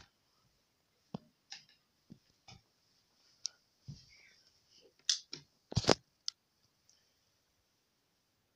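Handling noise: about a dozen irregular clicks, knocks and short rustles, with the loudest knocks close together about six seconds in, fading out after about seven seconds.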